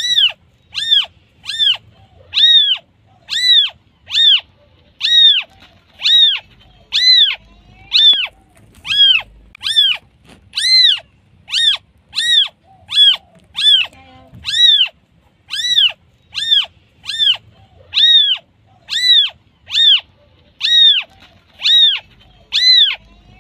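Newborn kitten mewing over and over, about one and a half high-pitched cries a second, each rising and then falling in pitch: a newborn's call for its mother.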